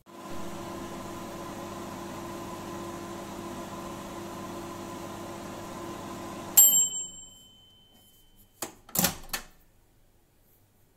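UPO microwave oven running with a steady hum as it heats a plate of instant noodles, stopping about six and a half seconds in with a single ringing ding at the end of the cycle. About two seconds later the door is opened with a couple of clunks.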